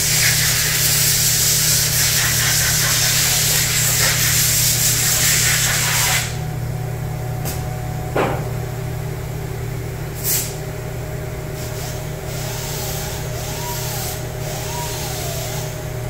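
A loud steady hiss cuts off sharply about six seconds in. After it, the OB7 collaborative robot arm's joint motors whine faintly, their pitch wavering up and down as the arm moves, over a steady low machine hum.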